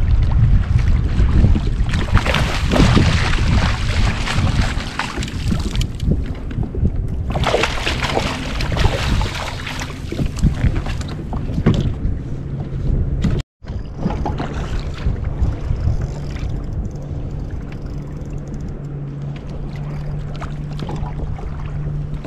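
Water sloshing and splashing against a fishing kayak, with wind buffeting the microphone. The splashing comes in two louder spells in the first half. The sound drops out for an instant about halfway, and a steady low hum runs under the water noise after that.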